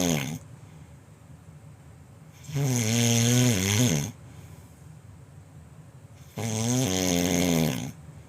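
A person snoring loudly, a snore every three to four seconds. One ends just after the start, then two full snores of about a second and a half each follow. Each is a low drone with a breathy hiss over it.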